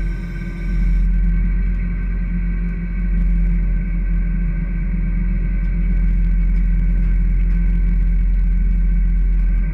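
Fishing boat's engine running steadily: a deep, even drone with a low rumble underneath.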